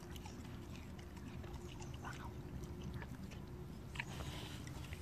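A pit bull-type dog chewing and biting into a fallen fruit, with a few sharp crunches about two and four seconds in over a steady low rumble.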